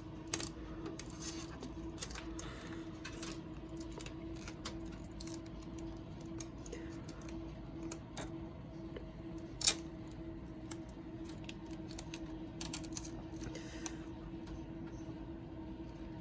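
Scattered light clicks and plastic handling noises as fingers pick at the protective film on a graphics card fitted in a PC case, with a sharper click about ten seconds in. A steady low hum runs underneath.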